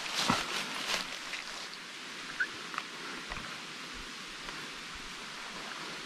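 Dry leaf litter crunching underfoot in the first second, then a steady outdoor hiss with a few faint clicks and rustles.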